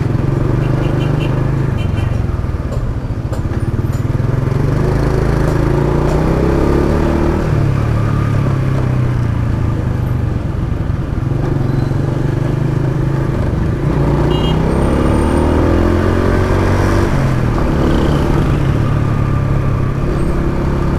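A Honda Wave underbone motorcycle's single-cylinder four-stroke engine running while riding in traffic, heard from on the bike along with road and wind noise. Its pitch rises and falls twice, about a third of the way in and again past the middle, as it speeds up and eases off.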